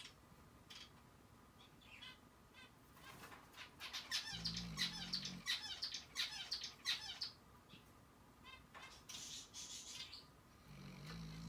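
Snoring in sleep: two low snores about six seconds apart, each breath cycle carrying rapid high-pitched crackling and squeaking, the noisy upper-airway breathing that is being recorded for an airway assessment.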